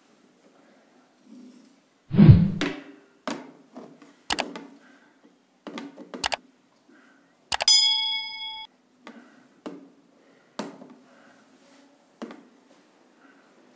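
Scattered knocks and taps of a ruler and marker against a whiteboard, about ten in all, starting with a low thump about two seconds in. About halfway through comes a single bell-like ding that rings for about a second.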